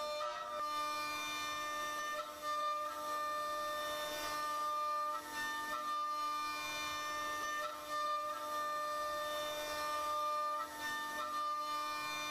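Background music: a slow woodwind-like melody of long held notes over a steady drone.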